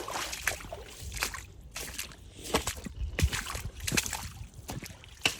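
Steps sloshing and splashing through shallow creek water in knee-high boots, in an uneven series.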